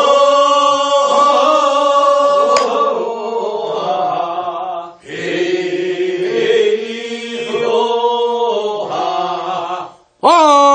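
A group of singers chanting the refrain of a Korean rice-paddy weeding work song (nonmaeneun sori, first weeding), answering the lead singer in two long drawn-out phrases, the second starting about halfway through.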